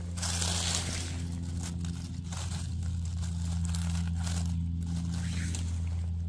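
Dry leaf litter crackling and rustling as a gloved hand brushes it aside on the forest floor, over a steady low hum.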